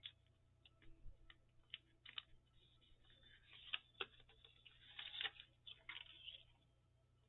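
Faint, irregular ticks and crinkles of paper being handled and worked by hand, busiest in a cluster a few seconds in.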